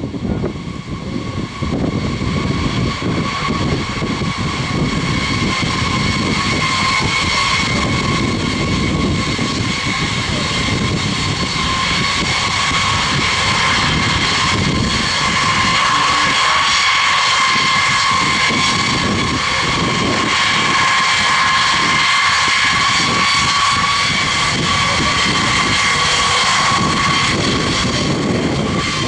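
Jet engines of a B-52H bomber, its eight TF33 turbofans, running as it taxis. A steady high turbine whine sits over a broad low rumble, and the whine starts to climb in pitch near the end.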